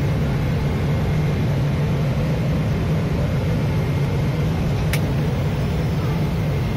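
Steady cabin noise of a Boeing 777 in flight: a low, even rumble of engines and airflow. A brief click about five seconds in.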